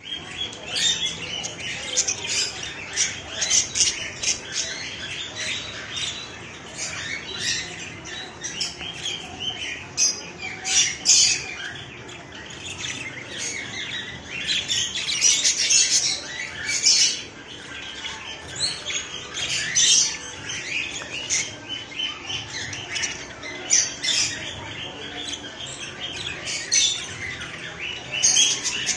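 A flock of helicopter budgies (budgerigars) chattering, with a constant mix of short chirps and harsh squawks.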